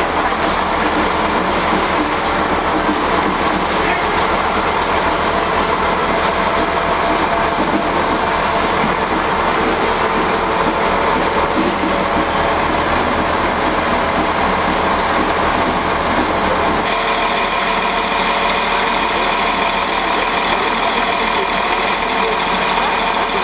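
RA2 diesel rail bus idling steadily while it stands at the platform, a constant engine hum. About two-thirds of the way through the hum changes abruptly to a thinner, higher tone.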